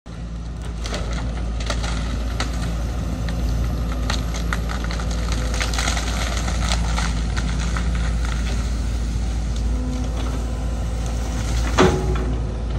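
Excavator engine running steadily while its hydraulic grab crushes and breaks demolition material, with many sharp cracks and snaps and one louder crack about a second before the end.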